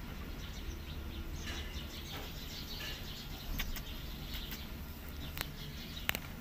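Faint high squeaks from newborn kittens nursing, over a steady low hum, with a few sharp clicks in the second half.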